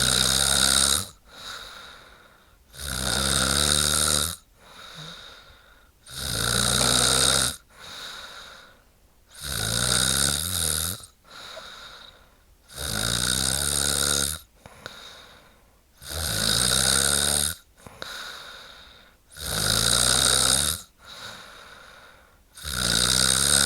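A woman snoring in a steady rhythm: a loud snore about every three seconds, each about a second and a half long and followed by a softer breath.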